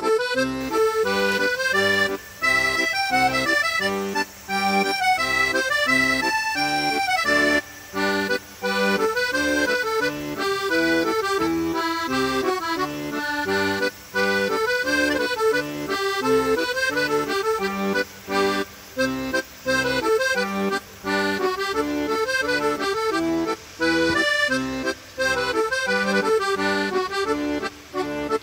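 Instrumental background music: a melody over regularly repeated chords, broken by short gaps now and then.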